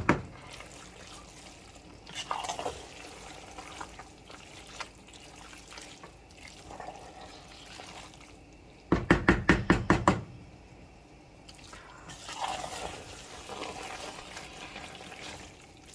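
Spoon stirring thick, creamy fettuccine Alfredo in a pot, giving soft wet squelches of noodles and sauce. About nine seconds in comes a quick run of about eight loud knocks.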